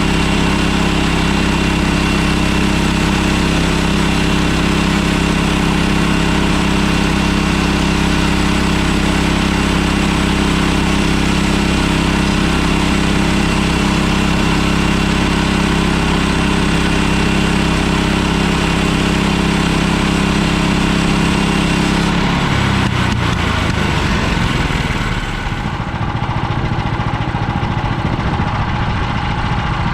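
Portable sawmill's gasoline engine running steadily at high speed, then throttled down about 22 seconds in, its pitch falling over a few seconds to a lower, rougher idle.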